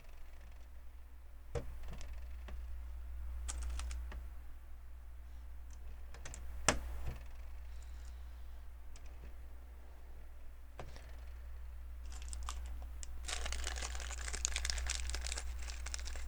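Small plastic LEGO pieces clicking and clattering as they are handled and pressed together: scattered clicks, a sharper snap a little before the middle, and a dense run of rattling clicks near the end.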